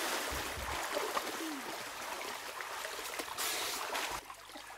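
Creek water splashing and trickling around people swimming, getting steadily quieter and dropping away near the end.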